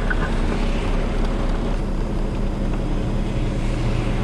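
Heavy truck's engine running, heard from inside its cab, over the hiss of traffic on a wet road; a steady low engine hum comes in about halfway through and grows louder toward the end.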